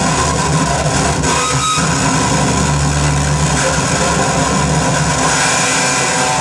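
Loud, steady wall of distorted electronic noise from a live noise performance, played through floor effects pedals and an amplifier, over a low drone, with a short high tone about a second and a half in.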